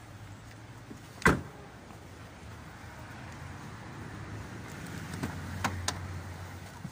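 A car's rear passenger door slammed shut with a single loud thud about a second in. Near the end come a few light clicks as the driver's door handle and latch are worked open, over a low steady hum.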